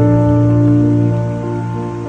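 Slow, calm background music of sustained chords, with a deep bass note entering at the start.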